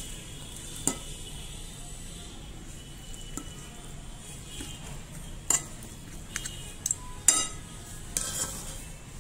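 A steel spoon scraping and clinking against a ceramic plate as cooked rice is spooned out and spread. There are a few sharp clinks, one about a second in and a cluster in the second half, the loudest near the end, over a steady low hum.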